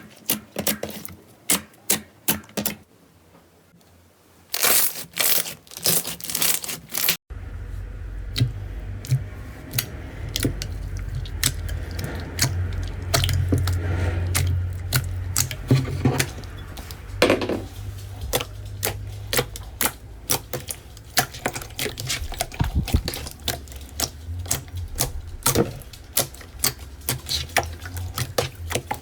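Slime being squeezed and stretched by hand, giving a long run of sharp clicks, pops and crackles. About seven seconds in the sound cuts abruptly and a steady low hum runs under the clicking from then on.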